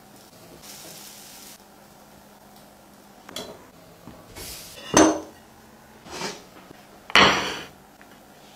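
A spatula knocking and scraping against a non-stick frying pan: a few sharp clinks, the loudest about five seconds in, then a longer scrape just after seven seconds.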